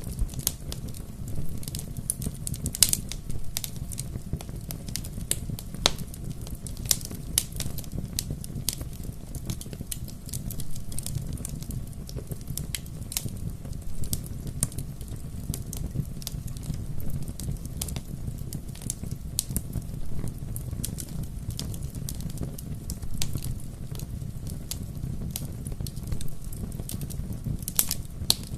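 Wood fire crackling, with irregular sharp pops and snaps over a low steady rumble of flames.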